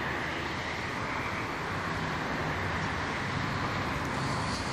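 Steady rushing background noise with a faint low hum underneath, even throughout.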